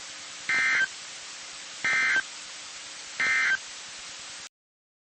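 Three short bursts of Emergency Alert System digital data tones over NOAA Weather Radio static, about 1.4 seconds apart: the end-of-message code closing the alarm test. The radio hiss cuts off suddenly about four and a half seconds in.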